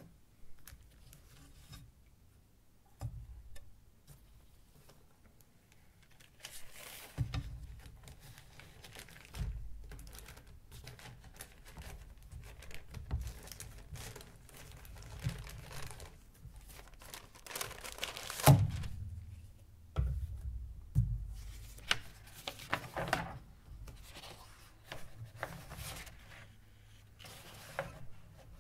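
Paper and cardboard rustling and scraping close to the microphone, with scattered knocks and dull thumps as things are handled; the loudest knock comes about two-thirds of the way through.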